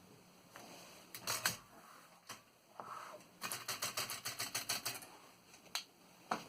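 Keys of a 1926 Underwood No. 5 manual typewriter striking the platen. A few separate strokes come first, then a quick burst of about fifteen keystrokes, then two more single strokes.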